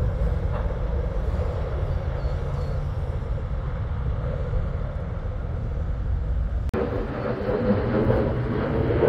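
V-22 Osprey tiltrotor flying past, its rotors and engines making a steady low rumbling drone. About two-thirds of the way through, the sound cuts abruptly to the engine noise of a fighter jet flying high overhead.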